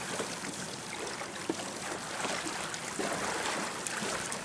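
Water trickling and sloshing beside a boat, with a few faint light ticks.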